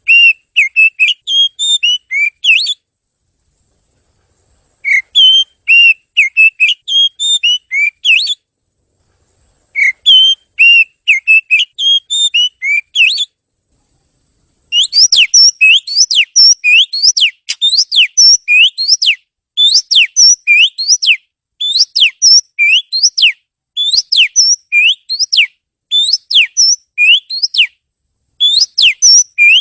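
Oriental magpie-robin singing loudly. It gives three bursts of quick, varied whistled notes a few seconds apart, then from about halfway a long run of repeated sharp up-and-down whistles in short groups.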